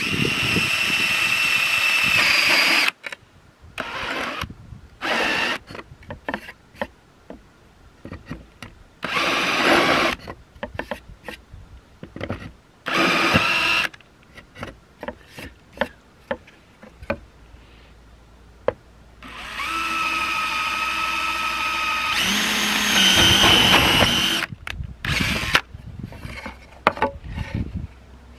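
Cordless drill driving a titanium-coated HSS step drill bit through laminate board, in several short runs with pauses between. The longest run comes in the second half, lasting about five seconds, and its whine rises in pitch partway through.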